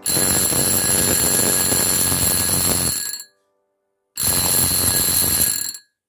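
Homemade electric doorbell, a sewing-machine motor driving a red metal bell dome, ringing in a continuous rapid metallic clatter. It rings twice: about three seconds, then after a second's pause about a second and a half, each ring cutting off suddenly.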